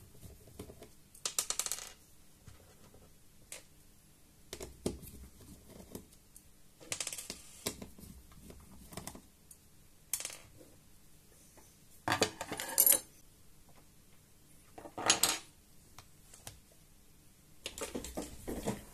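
Small metal screws and laptop display hinges clinking as they are handled and set down on a wooden desk, in about eight short scattered bursts of clicks with a brief metallic ring.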